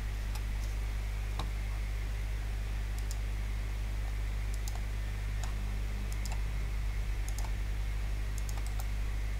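Steady low electrical hum with a dozen or so scattered, light computer-mouse clicks.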